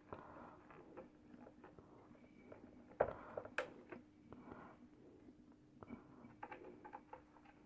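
Faint clicks, taps and scraping as an induction cooker's control board is set back in place and its nuts are tightened, with a sharper knock about three seconds in and another about half a second later. A steady faint hum runs underneath.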